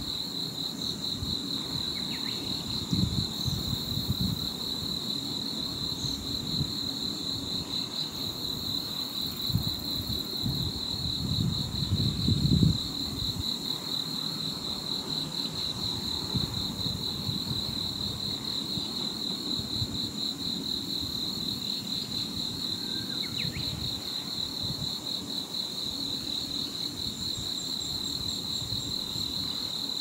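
An insect trilling steadily at a high pitch without a break, with low gusts of wind rumbling on the microphone, strongest about twelve seconds in.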